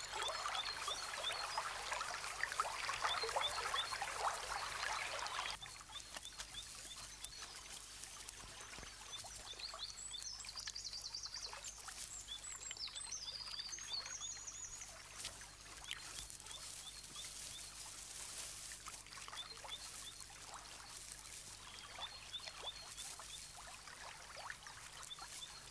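Water trickling for about the first five seconds, then it cuts off to a quieter outdoor background with small birds chirping now and then, most around the middle.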